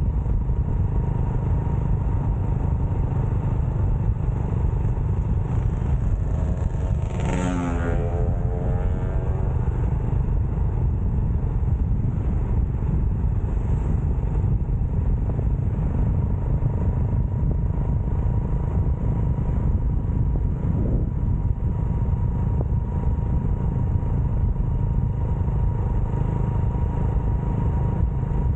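Motorcycle on the move: a steady low rumble of wind on the microphone with the engine running underneath and a faint constant whine. About seven seconds in, a brief pitched sound with overtones bends in pitch and passes.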